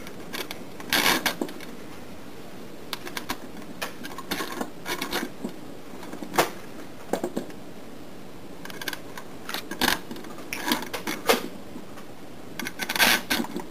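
Metal bolts clicking and clinking irregularly as they are handled and slid through the holes in an AndyMark Toughbox gearbox's aluminium side plates.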